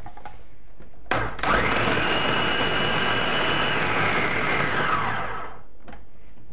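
Bosch food processor chopping tomatoes, garlic and cucumber: switched on with a click about a second in, the motor and blade run steadily for about four seconds, then wind down.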